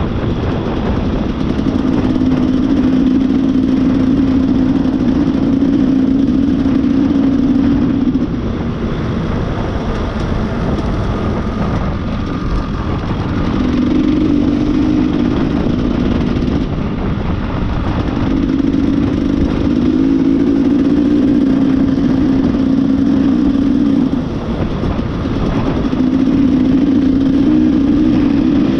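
Off-road motorcycle engine running under throttle while riding. It holds a steady note for several seconds at a time, drops off briefly about four times as the throttle is eased, then picks up again.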